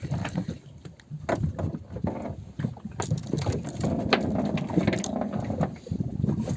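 Irregular mechanical clicks and knocks over rustling handling noise.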